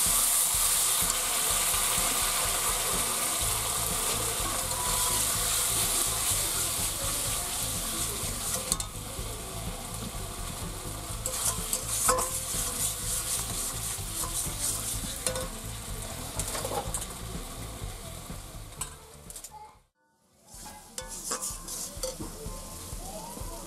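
Boiled potatoes in spice paste frying in a steel karahi, sizzling loudly at first and then more softly, as a metal spatula stirs and scrapes against the pan with scattered clinks. The sound breaks off briefly near the end.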